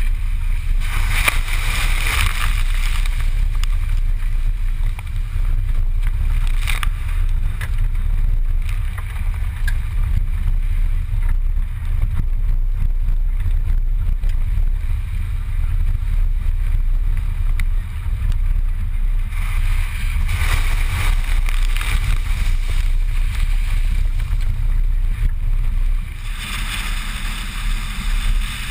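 Suzuki Grand Vitara driving along a muddy dirt track, heard through a camera mounted on the outside of the car: a steady low rumble of engine, road and wind buffeting, with a few stretches of louder hissing tyre noise, about a second in, around twenty seconds in and near the end.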